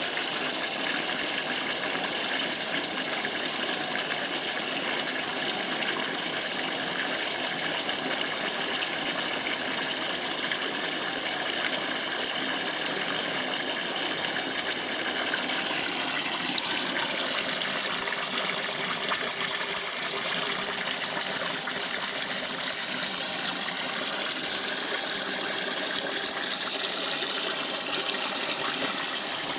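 Electrolux Top 8 top-loading washing machine taking in water for the rinse, a steady gush of water running into the tub.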